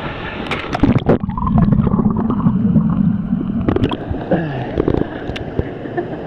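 A person jumping into a river pool: a loud splash about a second in, followed by a couple of seconds of churning, gurgling water, with a few more sharp splashes as she surfaces.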